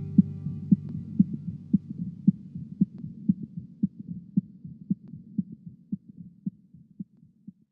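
A person's heartbeat recorded through a stethoscope: steady low thumps about twice a second that slowly fade out and stop near the end. The last trace of a song fades under it in the first second.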